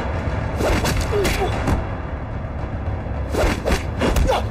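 Fight-scene sound effects of blows and swishes, several in quick succession in two flurries with a lull in between, mixed with short shouts over a music score.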